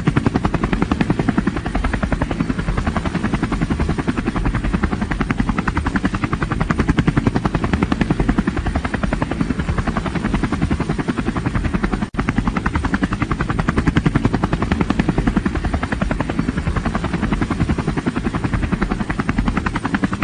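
An old aircraft running steadily, with a rapid, even chopping beat. The sound drops out briefly about twelve seconds in.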